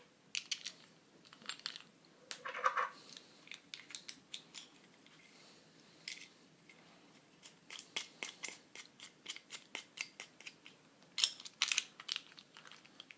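Latch Lake Spin Grip mic mount being put back together by hand: scattered small clicks and taps of its parts fitting and turning, with a run of quick clicks, about three a second, in the second half.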